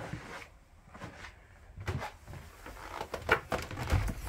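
Knocks and clunks of a yacht's cabin panels being handled to get at the engine compartment, scattered at first and clustered about three seconds in, with a heavier low thump near the end.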